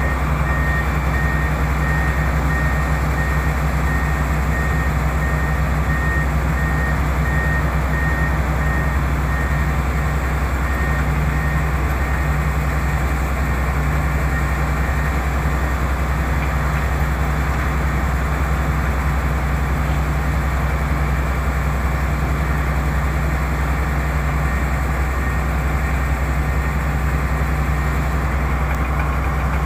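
Komatsu hydraulic excavators' heavy diesel engines running with a steady drone. A high repeating beep alarm, the kind excavators sound while travelling, sounds for the first ten seconds or so, then stops.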